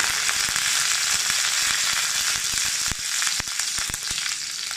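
Fresh curry leaves sizzling hard in hot sesame oil in a kadai as the tempering is done, with many sharp crackles and pops in the hiss. The sizzle eases a little after about three seconds.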